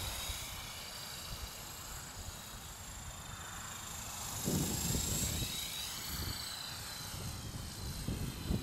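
Electric RC helicopter (a modified Esky Honey Bee fixed-pitch with a Slo-Max 300 main motor and a GWS direct-drive tail motor) whining in flight, its high pitch swelling and dipping as it manoeuvres. Low rumbling bursts come through about halfway through.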